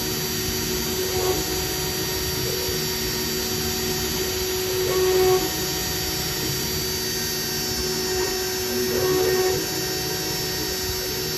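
CNC engraving machine running: a steady high spindle whine over mechanical noise, swelling louder briefly near the start, about five seconds in and about nine seconds in.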